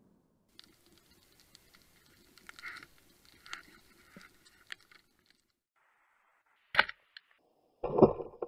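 Faint underwater clicking and crackling, then two sharp snaps from a Matador 76 roller speargun being fired, about seven and eight seconds in, the second louder.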